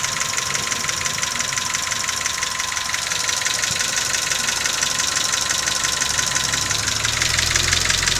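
Nissan March's CR12 1.2-litre four-cylinder engine running with a rapid, even ticking clatter: the unexplained extraneous noise the owner is asking about. A steady whine runs underneath, and a deeper rumble grows about seven seconds in.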